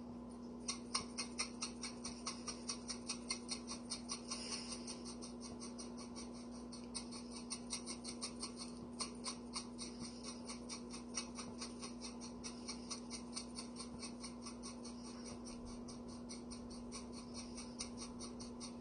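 Pepper shaker being shaken over food: a long run of quick dry clicks, about three or four a second, with a short break about five seconds in, over a steady low hum.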